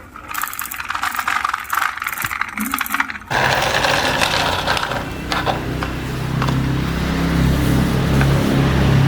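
Small hard toy pieces clicking and rattling in quick succession. About three seconds in, a steady low hum with a hiss starts abruptly and carries on.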